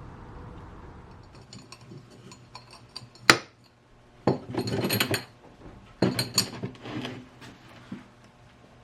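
Small metal parts and tools clinking and knocking on a workbench. There is one sharp clink a little over three seconds in, then two rattling, scraping spells of about a second each, with lighter clinks scattered around them.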